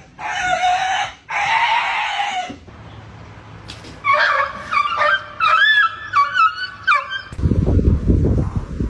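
Cat and dog fighting: two long hisses, then a run of short high-pitched yelps and whines from about four seconds in, then a low rumbling noise near the end.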